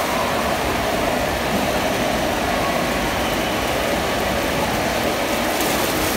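Steady rushing-water noise of an indoor waterpark, with no sudden sounds.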